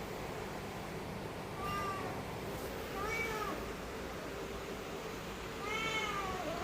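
Orange domestic cat meowing three times, each call rising and falling in pitch, the last one longer.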